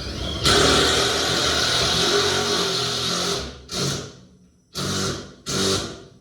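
Electric-hydraulic power unit of a vehicle lift running, a motor-driven pump hum. It runs steadily for about three seconds, then starts and stops in three short bursts as the button is pressed briefly each time.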